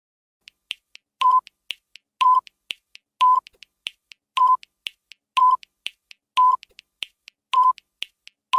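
Quiz countdown-timer sound effect: a short mid-pitched beep about once a second, with faint ticks between the beeps, starting about half a second in.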